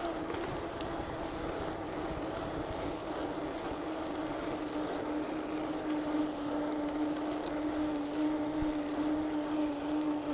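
Wind and rolling noise of a bicycle ride, with a steady droning hum whose pitch sinks slowly.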